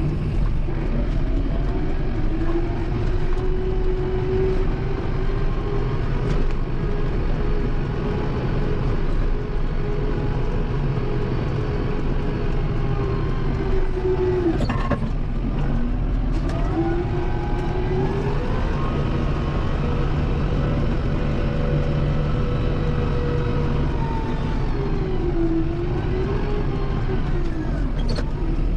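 Kubota M7060 tractor's four-cylinder diesel engine running under load while pushing snow, its pitch sagging and recovering several times, most deeply about halfway through. A couple of short knocks come around that dip.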